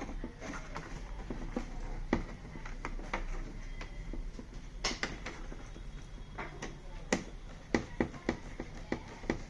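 Irregular sharp clicks and taps of screws and a screwdriver as a replacement speaker is screwed into a TV's plastic housing, with a few louder knocks about two, five and seven seconds in.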